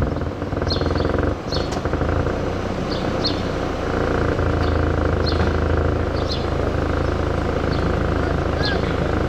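A steady vehicle engine hum, which gets louder about four seconds in, with small birds chirping repeatedly over it.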